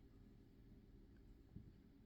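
Near silence: room tone with a low hum, and one faint soft knock about one and a half seconds in.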